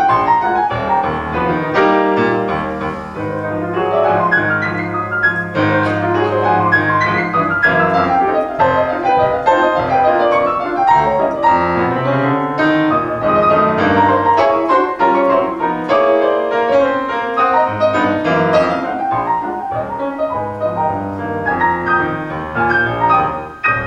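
Fazioli concert grand piano played solo: a 1920s popular song with a steady bass line under a busy melody, the playing dropping away at the very end.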